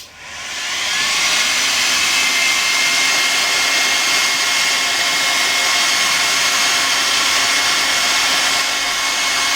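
Electric hot air gun switched on with a click, its fan spinning up over about a second into a steady loud rush of air with a faint high whine, as it heats a solder-seal heat-shrink wire connector.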